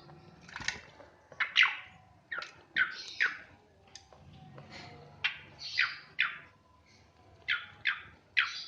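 A Javan pied starling (jalak suren) giving a series of short, sharp calls, about fourteen, many in quick pairs, in uneven bursts.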